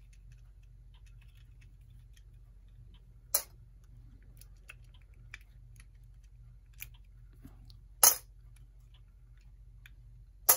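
Small metal clock parts and a hand tool being handled as the nut and hands come off a clock movement. Three sharp clicks a few seconds apart, with fainter small taps between them, over a faint steady low hum.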